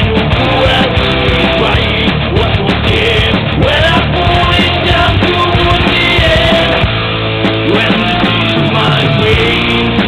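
Rock song playing, a full band with electric guitars and drums in a punk-rock style.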